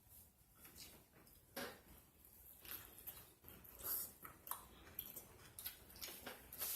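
Close-up chewing and lip smacking while eating a burger: a soft, irregular run of short wet mouth clicks and smacks.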